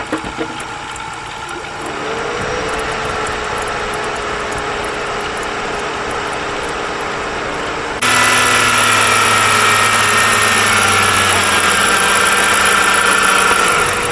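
A 2003 Dodge Caravan's 3.3 L V6 engine running, with coolant circulating and the radiator cap off. About eight seconds in, a louder, steady whining hum cuts in abruptly and stops just as suddenly near the end.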